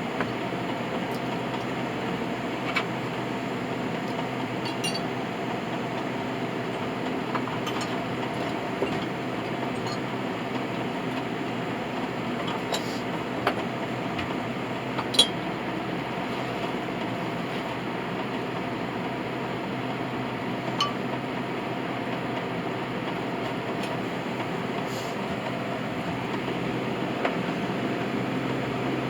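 A steady mechanical hum holding several pitches, with a few light metallic clinks scattered through it, the sharpest about halfway.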